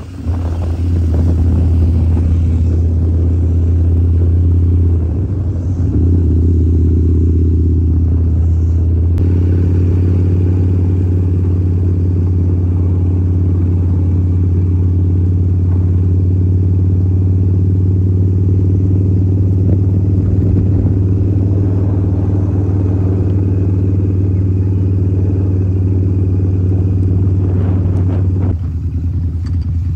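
Harley-Davidson V-Rod's 1250cc liquid-cooled V-twin running steadily under way at road speed. It briefly eases off about five seconds in and again near the end.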